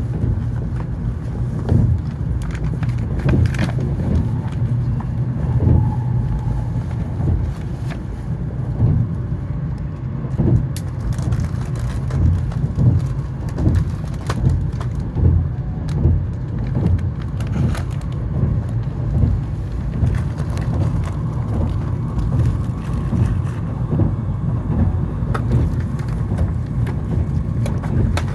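Cabin running noise inside an N700S Shinkansen car at speed: a steady low rumble with repeated soft thumps and small clicks and rattles.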